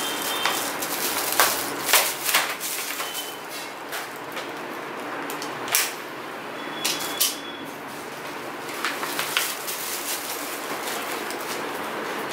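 Sharp snips and clicks, spaced irregularly, as packaging ties are cut off a new bicycle with a hand cutter, over a steady hiss.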